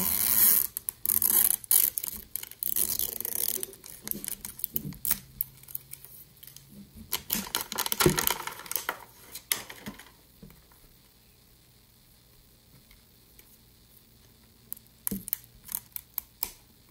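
A tape tab peeled and a thin plastic wrapper pulled off a toy capsule: rustling and tearing that is loudest over the first few seconds and again about eight seconds in. After a quiet spell, fingernails click and pick at the next tab near the end.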